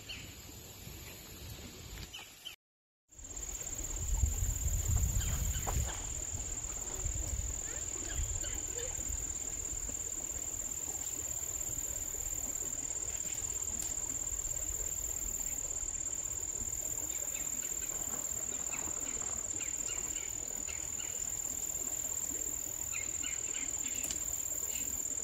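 Steady high-pitched insect chorus, with a low rumble a few seconds in.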